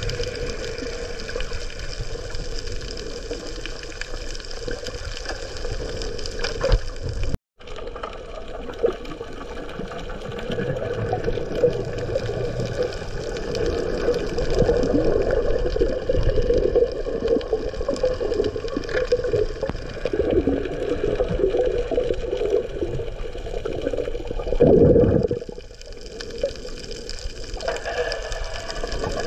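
Underwater sound picked up by a submerged camera: a continuous muffled wash of moving water with a steady hum underneath. It cuts out for a moment about seven seconds in.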